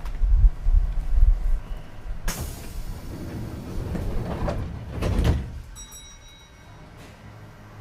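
Kintetsu 2430-series train's sliding passenger doors closing: a sharp bang about two seconds in, then a rush of noise that swells again and dies away after about five seconds.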